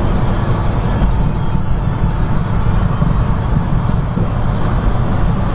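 Semi-truck engine and tyre noise heard from inside the cab while driving: a steady, even low hum with no change in pace.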